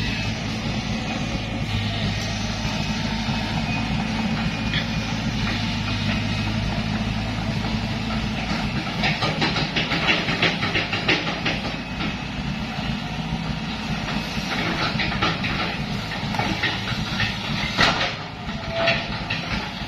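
An engine runs with a steady hum. From about halfway through it fades, and a tracked excavator's crawler tracks clank and rattle in several bursts as the machine moves.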